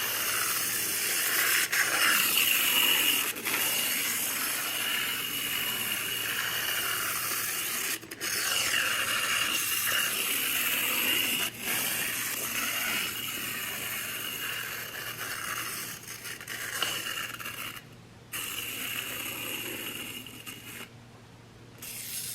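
Tomy wind-up James toy engine running along the track: its clockwork motor whirring with a steady high tone while the wheels rattle. It runs a bit sluggishly and fades and breaks off over the last few seconds as the spring runs down.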